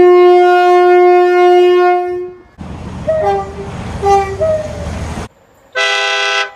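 Train horns in three cut-together clips. First a long, steady single horn note that stops about two seconds in; then, over a low rumble, a run of short toots alternating between a lower and a higher pitch, like a two-tone horn; then one short horn blast near the end.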